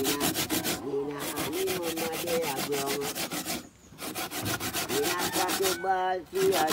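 Coconut being grated by hand on a punched-metal grater: quick, even rasping strokes, broken by three short pauses.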